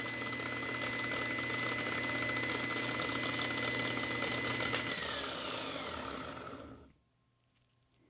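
Small electric buffing tool running steadily with a high whine while polishing with fine compound. It is switched off about five seconds in, its whine falling as it winds down to a stop, and it is near silent by about seven seconds.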